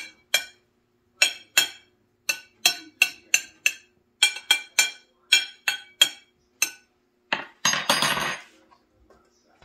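Metal spoon clinking against a plate in a quick series of about twenty light taps, roughly three a second, as rice is patted into a mound, then a short scrape near the end.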